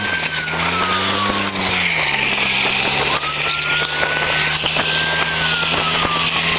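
A car engine running under acceleration, its pitch dropping and settling about two seconds in, over heavy road and wind noise and the hiss of boot soles being dragged along the pavement at speed. A high tone rises quickly, holds and slowly falls, twice.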